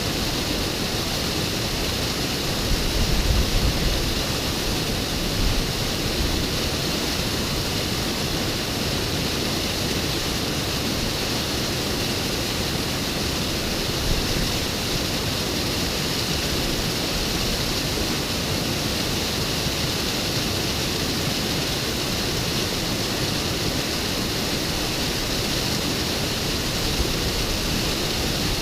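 Waterfall rushing steadily, an even wash of falling water. A few brief low thumps about three to four seconds in.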